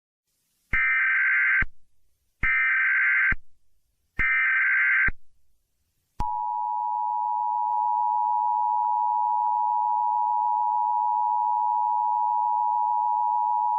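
Emergency Alert System SAME header: three identical bursts of chirping digital data tones, each just under a second long, evenly spaced. About six seconds in, the EAS two-tone attention signal starts: a steady dual tone that holds without change.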